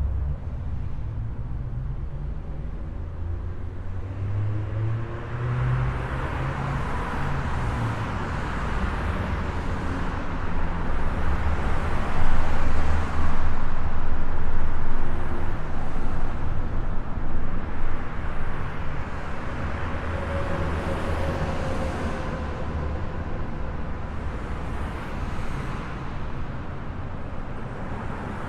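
Highway traffic noise: a steady rumble of engines and tyre hiss, swelling as vehicles pass, loudest about halfway through.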